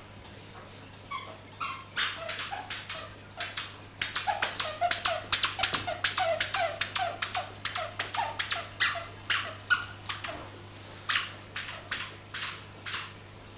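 A dog giving a rapid string of short, high yips and whines while playing, several a second at the busiest, thinning out near the end.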